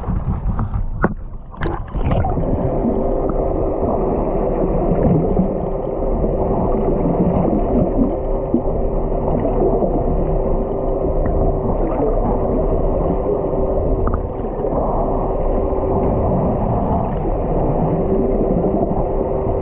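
Boat motor running steadily with a constant hum and rushing water noise, starting abruptly about two seconds in after a few sharp knocks.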